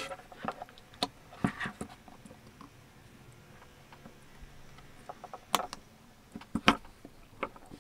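Small clicks, taps and scrapes from handling a 12V water pump's plastic housing and probing into its pump head with a thin metal tool. A few scattered clicks with quiet stretches between, two sharper ones near the end.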